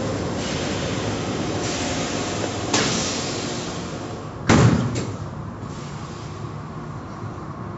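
Steady rushing rumble of automatic car wash machinery and water spray heard through the viewing windows. There is a sharp click a little under three seconds in and a loud bang about four and a half seconds in, after which the rushing is a little quieter.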